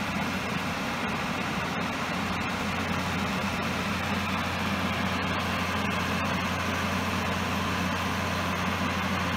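Quarry machinery running steadily, an unbroken low engine-like hum.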